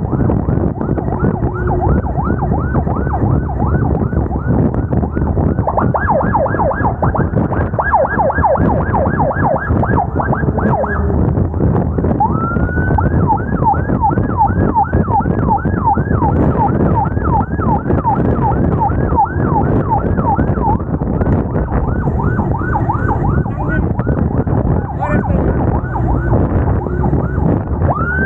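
Emergency vehicle siren in a fast yelp, sweeping up and down about two to three times a second, over a loud, continuous low rumble of traffic and engine noise.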